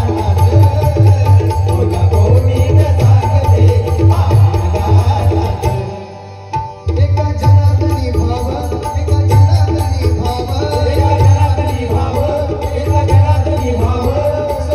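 Instrumental passage of a Marathi bhajan: pakhavaj and tabla drumming a steady rhythm under sustained harmonium. The ensemble breaks off for about a second, roughly six seconds in, then comes straight back in.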